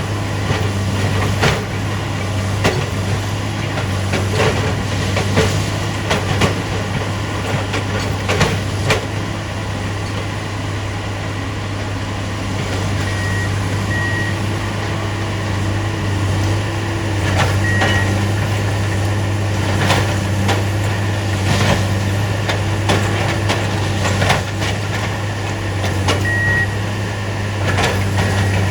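Diesel-powered railroad track maintenance machines running steadily, with scattered metallic clanks and knocks from the tie work and a few short high beeps.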